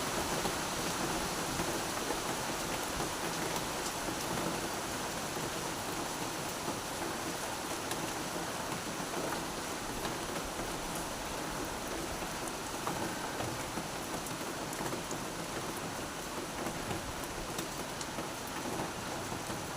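Steady rain falling: a continuous even hiss with scattered sharp ticks of individual drops hitting surfaces.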